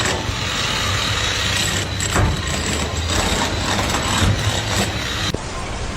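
An engine running steadily under dense mechanical noise, with an abrupt change in the sound about five seconds in.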